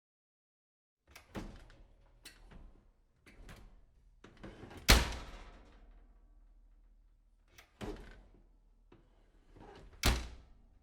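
A door being handled and shut: several lighter knocks and clicks, then a loud slam about five seconds in that rings on and fades, followed by more clicks and a second hard bang near the end.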